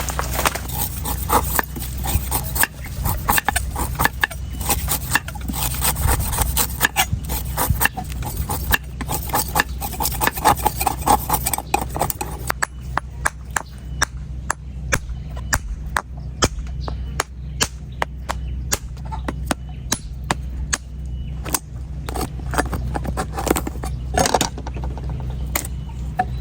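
A knife chopping and scraping into a coconut: a fast run of sharp knocks and scrapes that thins out to separate knocks about halfway through, over a steady low hum.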